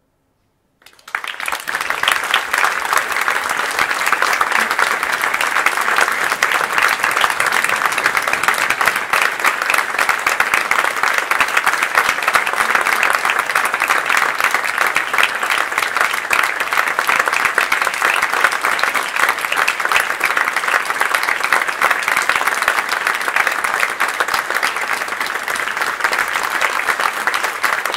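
Audience applauding in a theatre, breaking out suddenly about a second in after a silence and then holding dense and steady.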